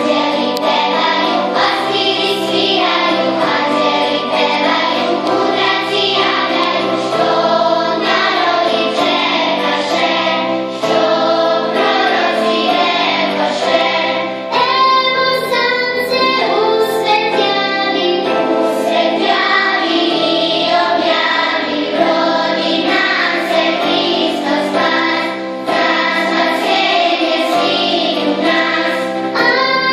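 A choir of children and women singing a song, with a new phrase setting in about halfway.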